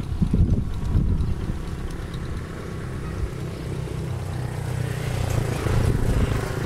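Quick two-wheel hand tractor's single-cylinder diesel engine chugging steadily as it drives on cage wheels through a wet rice paddy, louder in the first second and again about five seconds in.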